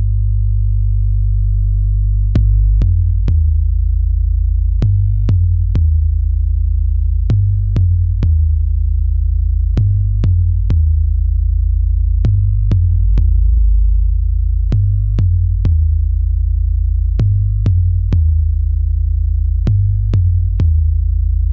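Electronic bass music: deep held sub-bass tones, joined a couple of seconds in by a drum-machine pattern of three quick hits repeating about every two and a half seconds.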